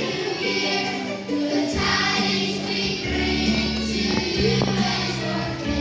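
A choir with children's voices singing a Christmas song over instrumental accompaniment with a steady bass line.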